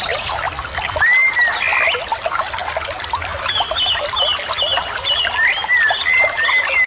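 Many birds chirping and whistling at once, short rising and falling calls overlapping, over a steady trickle of running water.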